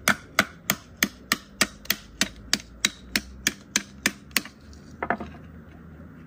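A stone repeatedly striking the spine of a knife set into a piece of firewood, batoning it to split it: about fifteen sharp, even knocks, roughly three a second, stopping about four seconds in. A short cracking sound follows about five seconds in.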